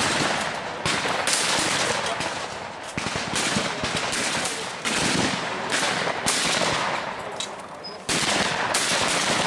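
Shotguns firing at clay targets: about ten sharp shots, roughly one a second, each trailing off in a short echo.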